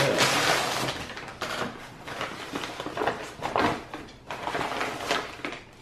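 Brown paper mailer crinkling and rustling as it is handled and opened, in uneven crackles.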